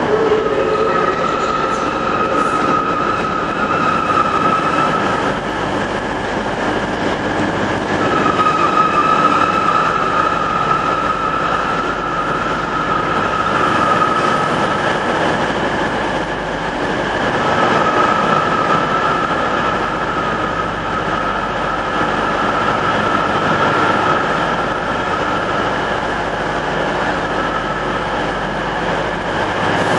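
Coupled Class 156 diesel multiple units creeping slowly into a platform under a station roof, with a steady rumble of engines and wheels. A high wheel squeal rises and fades three times, from flanges grinding on the curved station track.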